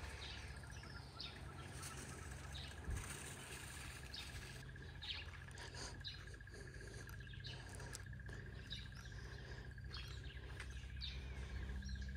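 Wild birds chirping and calling with many short, scattered notes, over a steady high trill and a faint low hum.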